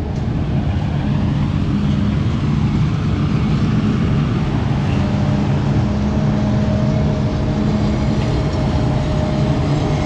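New Holland self-propelled forage harvester chopping standing corn for silage and blowing it into a truck-mounted forage box: a loud, steady engine and machine drone. A steady whine joins about halfway through.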